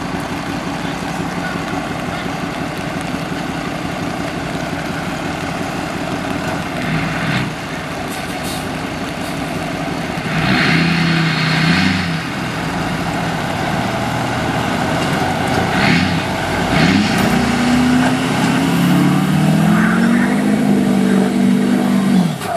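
Motor vehicle traffic, led by a truck engine running steadily; near the end an engine revs up, its pitch rising and then holding as the vehicle accelerates.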